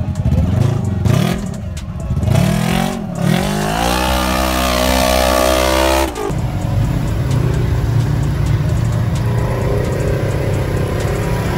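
Side-by-side UTV engine revving in several rising bursts, then held at a sustained high rev for about two seconds as its mud tyres spin in deep mud. It cuts off sharply about six seconds in to a steadier engine drone of side-by-sides cruising on a dirt trail.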